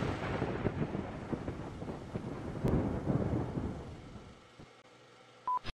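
Rumbling, thunder-like sound effect of an end-logo sting dying away after a boom, swelling once more about three seconds in before fading out. Near the end, a short steady beep.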